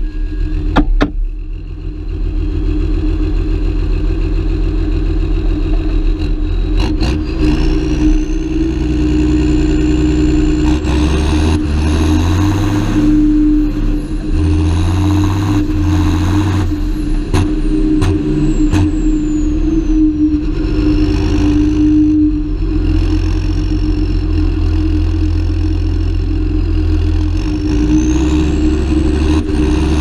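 John Deere 7530 Premium tractor's six-cylinder diesel engine running under load, hauling a trailer of maize down a rough lane, with a high whine that rises and falls several times and a few knocks and rattles.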